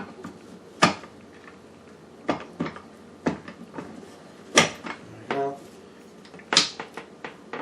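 Parts of an electric meat grinder knocked and clicked together while it is being assembled: about seven separate sharp knocks, one of them briefly ringing.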